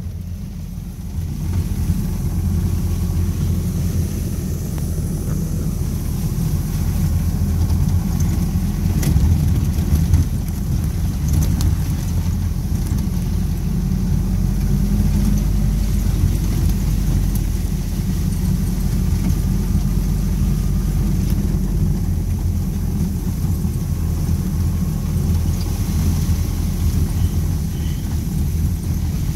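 Flat-fender Jeep running steadily under way on a gravel road, a continuous low engine rumble with tyre and road noise, heard from inside the open cab. A few faint clicks or rattles come through near the middle.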